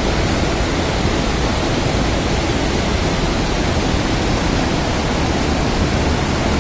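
Water pouring out of a rock-cut diversion tunnel and rushing down as a whitewater torrent: a steady, loud rush of water.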